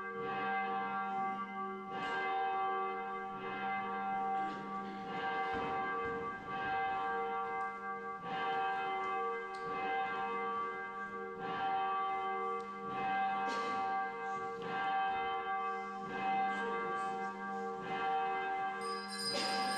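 Church bell ringing, struck about every second and a half, each stroke ringing on into the next. Near the end a higher, brighter ringing tone joins in.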